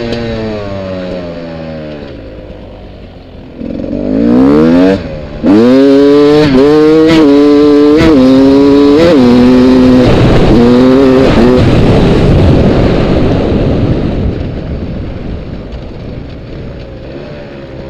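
A motor vehicle engine accelerating hard through several gear changes, its pitch climbing and dropping back about once a second. It then goes by as a loud rough rush that fades steadily away.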